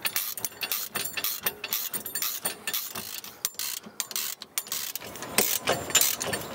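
Ratchet wrench clicking in quick runs while working the 17 mm bolts that hold the flails on a flail mower's rotor, as scarifying blades are fitted between the flails.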